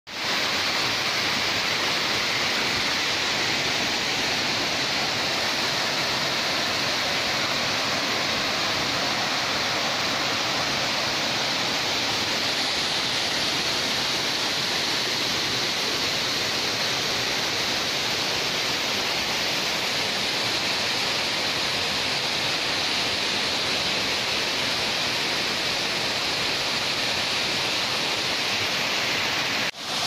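Small waterfall pouring over rock into a pool: a steady, even rush of falling water.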